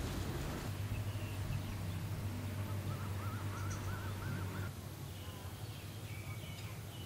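Evening outdoor ambience: birds calling, with a quick run of short repeated chirps in the middle and a few higher chirps after it. Under them runs a steady low hum that fades about two-thirds of the way through.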